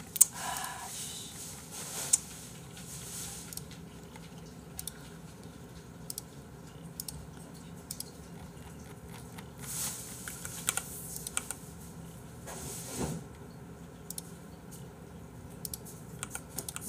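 Computer keyboard being typed on in short, scattered bursts of clicks.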